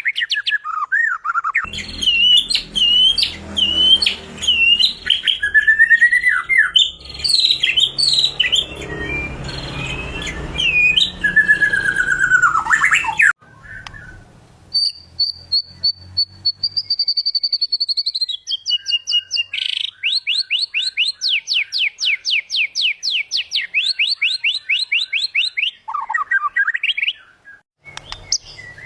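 White-rumped shama singing: varied loud whistles, sweeps and slurs. After a short break about halfway, one long high whistle that falls in pitch, then a fast run of repeated notes. A low rumble sits under the first half.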